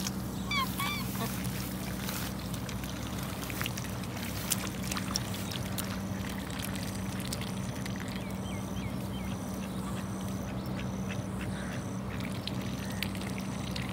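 Domestic ducks quacking: a short run of calls about a second in and a few softer calls around two-thirds of the way through, over a steady low hum.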